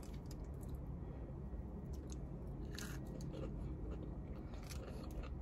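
A person chewing food with soft mouth sounds and a few faint clicks and rustles, over a steady low hum.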